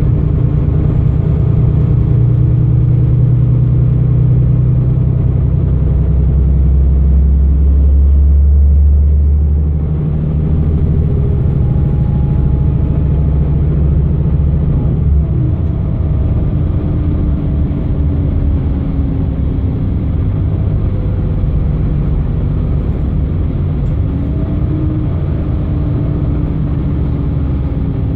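Solaris Urbino 15 city bus's 9.2-litre DAF diesel engine running with a loud low rumble, heard from inside the bus. It grows heavier about six seconds in, then eases off suddenly about ten seconds in and carries on at a steadier, slightly lower level.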